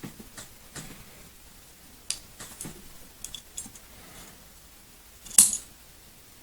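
Small metal clicks and taps of CZ 75 SP-01 pistol parts being handled and pressed during reassembly, while a part refuses to seat. Scattered light ticks, with one louder, sharp click about five seconds in.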